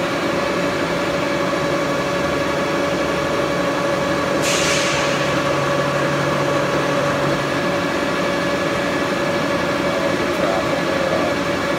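Bullard vertical turret lathe running with a steady mechanical hum while its turret head is traversed up the column. A short hiss about four and a half seconds in.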